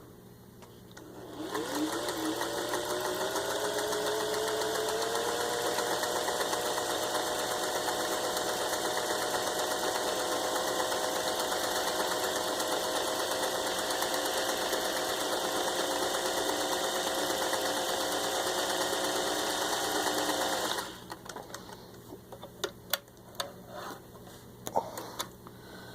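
Vintage 1961 Singer 500A Rocketeer sewing machine, with its rebuilt motor, sewing a cam stitch pattern: the motor spins up about a second and a half in, runs at a steady speed for about nineteen seconds, then stops abruptly. A few light clicks follow near the end.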